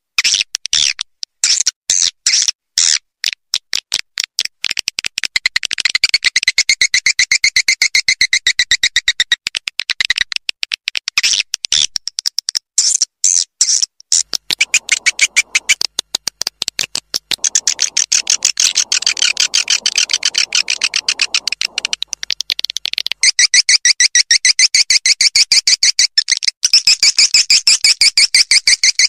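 Swiftlet lure call (walet): high, rapid chirping and twittering of swiftlets, played back as a looped call to attract them. It starts as separate chirps a few a second, then runs together into fast, dense twittering trains about five seconds in.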